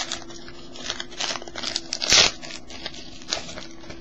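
Foil wrapper of a Fleer Ultra basketball card pack being torn open and crinkled by hand, in irregular crackles with the loudest burst about two seconds in.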